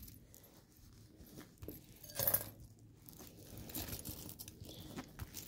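Faint clinks and rustles of small silver jewelry pieces being picked up and handled on a satin cloth, with a louder clink-and-rustle a little over two seconds in.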